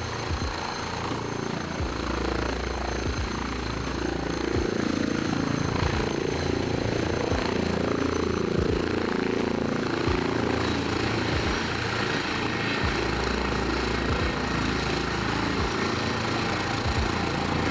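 Airbus ACH160 helicopter with its twin turboshaft engines hovering low and setting down. A steady high turbine whine runs over the rumble and irregular thumping of the main rotor.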